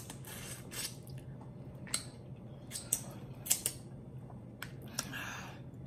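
Wet, close-up mouth sounds of eating saucy lobster: chewing and sucking and licking sauce off the fingers, with sharp lip smacks every half-second to second and a short breathy slurp about five seconds in.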